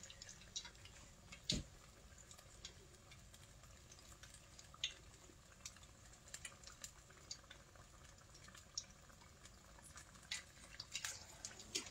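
Battered chicken tenders deep-frying in a stockpot of hot oil: faint, irregular popping and crackling over a low sizzle, busier near the end as another battered tender is lowered into the oil.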